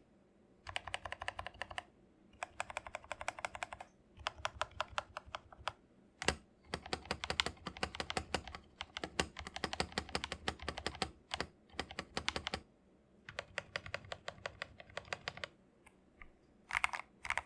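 MK870 mechanical keyboard with Akko Jelly Black linear switches being typed on in several bursts of fast keystrokes separated by short pauses, with one single, louder stroke about six seconds in.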